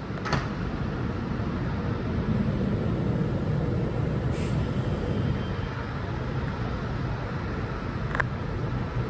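Norwegian Class 72 electric multiple unit standing at the platform with its onboard equipment running: a steady low rumble. A sharp click comes just after the start and another near the end.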